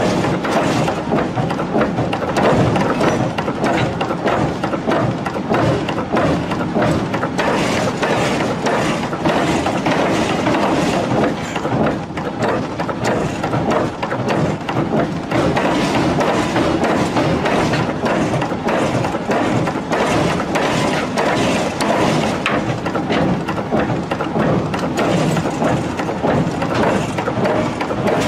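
Power hammer striking a red-hot steel hammer head between its dies in a fast, continuous run of blows, with heavy workshop noise.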